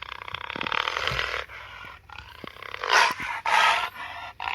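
Jaguar growling: a fast pulsing growl for about the first second and a half, then harsh snarls about three seconds in.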